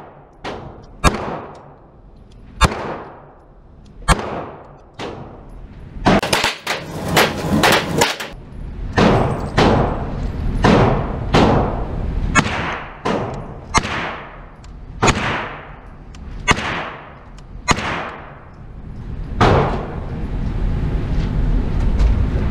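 Gunfire at an indoor range, each shot echoing off the walls. First come a few single shots from a 9mm-converted Glock 22 pistol, about a second and a half apart; then a quick cluster of sharp cracks. After that a 16-inch AR-9 9mm carbine fires a steady string, a shot roughly every three quarters of a second. Near the end the shots stop and a steady mechanical hum rises, the lane's target carrier running.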